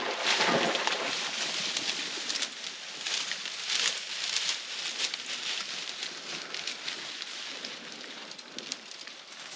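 Dry reeds, grass and brush rustling and crackling as something pushes through the cover, with many short sharp crackles. It is loudest in the first few seconds, then quieter.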